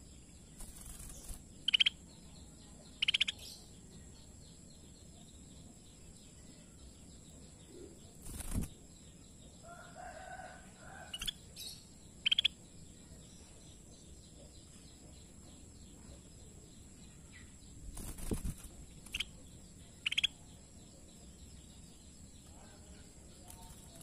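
Scaly-breasted bulbul giving short, sharp calls every few seconds, with two brief rustles like wing flaps. A steady high-pitched tone runs underneath.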